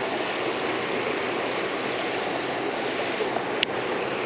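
River water rushing in a steady noise, with one sharp click about three and a half seconds in.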